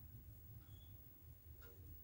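Near silence: steady low room hum with a couple of faint ticks.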